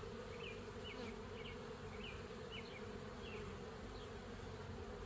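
Honey bees buzzing in a steady hum around an opened hive while its frames are being inspected. Short high chirps sound faintly in the background during the first few seconds.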